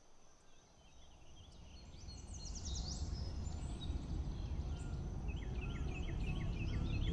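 Birds chirping in quick runs of short falling notes, over a steady high insect drone and a low rumble, all fading in from near silence and growing louder.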